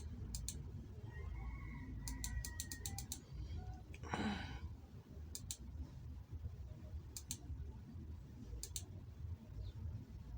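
Computer mouse clicking while files are browsed: a quick run of clicks about two seconds in, then a few more clicks near the end. A short breath about four seconds in, over a low steady hum.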